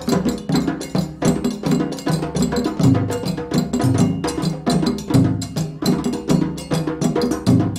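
Live band music: an upbeat piece driven by rapid percussive strikes over a moving bass line.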